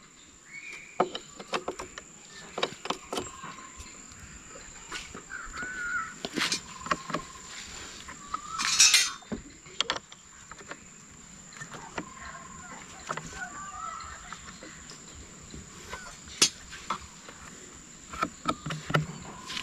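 Irregular metal clicks and taps of a socket spanner working a nut and bolt as a clamp on a scooter's front mudguard is tightened, with a short scraping burst about nine seconds in. Crows caw in the background.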